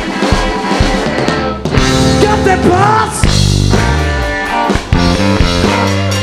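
Rock band playing live: drum kit, electric guitar and bass, with a few sliding guitar notes about three seconds in.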